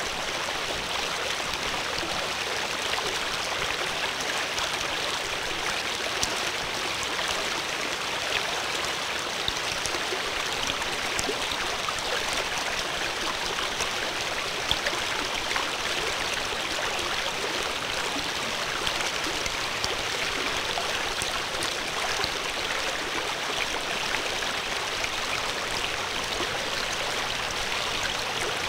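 Steady rushing babble of flowing stream water, with small splashes scattered through it.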